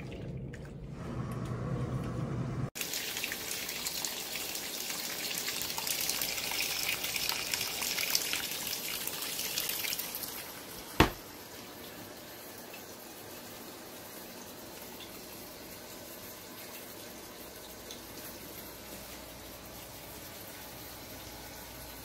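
Running water, a steady hiss that drops to a fainter steady hiss after a sharp click about eleven seconds in.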